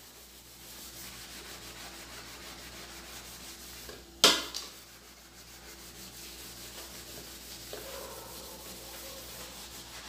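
Kitchen sponge scrubbing a greasy pot lid with soapy cleaning paste: a steady rubbing, with one sharp knock about four seconds in.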